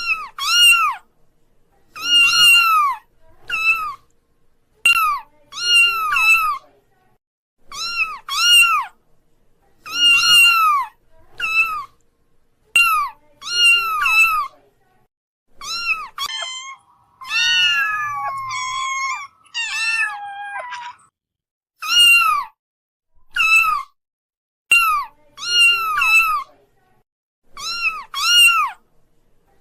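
Kittens meowing again and again: short, high-pitched mews, often two close together, with a longer, more drawn-out run of calls around the middle.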